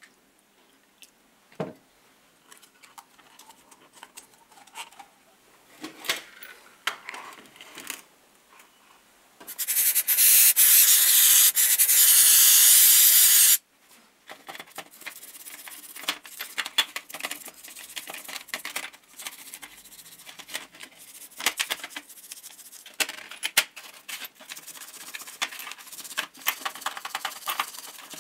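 Toothbrush scrubbing small greasy metal drill-driver parts in a stainless steel tray: rubbing and scratching with many light clicks of metal. About ten seconds in, a loud hissing spray runs for about four seconds and cuts off suddenly.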